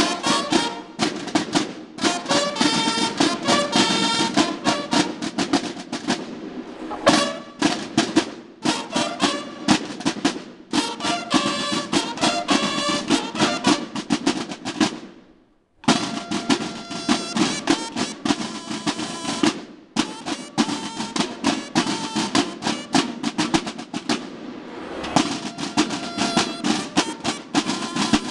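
A banda de guerra (drum and bugle corps) playing: field drums beating rapid rolls and cadences under bugle calls. About halfway through the band stops together for a moment, then starts again.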